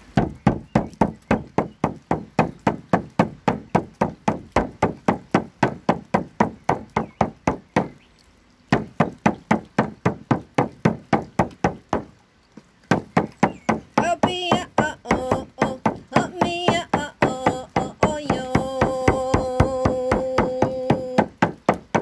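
Octagonal hide-covered shamanic frame drum beaten in a steady pulse, about three strokes a second, pausing briefly twice. From about two-thirds of the way in, a woman's wordless chanting joins the drumming and holds one long note near the end.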